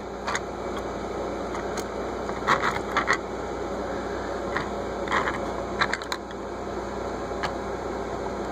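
Short sharp clicks and taps, about a dozen scattered irregularly, as 1:55-scale die-cast metal toy cars are handled and nudged against each other and a hard surface, over a steady background hiss and hum.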